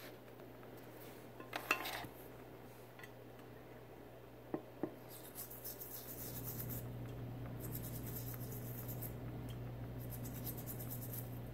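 A toothbrush scrubbing the base of a coral frag in short spells of rapid, hissy strokes, starting about five seconds in. Before that there are a few light clicks of glass and handling. A steady low hum runs underneath.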